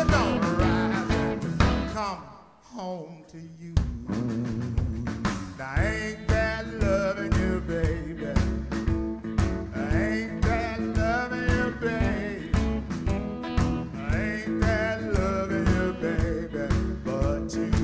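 Live blues band playing: electric guitar, upright bass, drums and harmonica, with a singer. About two seconds in the band drops out briefly while a single line slides down in pitch, then everyone comes back in together and plays on.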